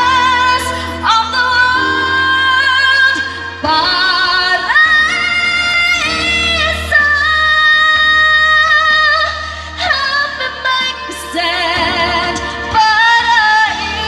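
A woman singing into a microphone over a backing track through a PA speaker, holding long notes, several with a wavering vibrato.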